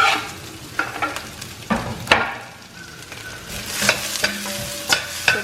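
Chopped onion and green chillies frying in hot oil, sizzling, while a spatula stirs them with several scraping strokes against the pan.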